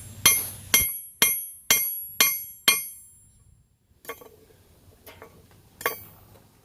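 Hand hammer striking a hot horseshoe nail on a railroad-track anvil, six sharp blows about two a second, each with a bright metallic ring, as the nail is drawn out thinner and longer. The blows stop about three seconds in, followed by a few lighter clinks.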